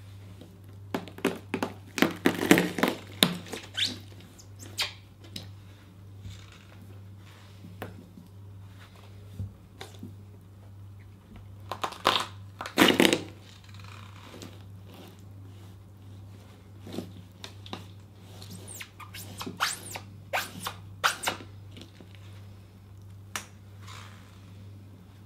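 Rubber rain boots crushing green grapes on a plastic floor: clusters of short, sharp crunches as the boots stamp on them, about a second in, around twelve seconds in and again from about seventeen to twenty-one seconds. A low steady hum lies underneath.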